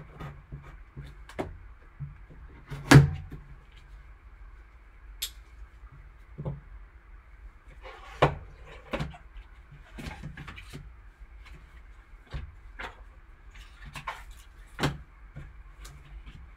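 Irregular knocks, scrapes and rustles of a cardboard box being opened by hand: a folding knife slits the seal, then the box is pulled open to a foam-lined case. The loudest knock comes about three seconds in.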